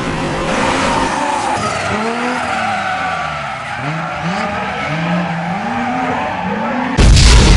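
Race car sound effects: engines revving up and down in repeated swoops over tyre squeal and skidding. A sudden, much louder burst of sound comes in near the end.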